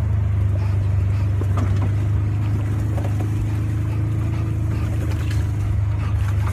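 Loud, steady low rumble of an open-sided vehicle driving along, engine and rushing air together.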